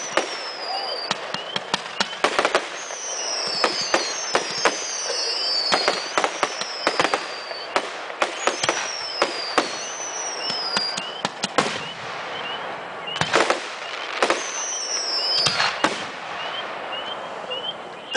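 Fireworks display: aerial shells bursting with many sharp bangs, clustered more densely at some moments, over a continuous crackle. Repeated high whistles fall in pitch throughout.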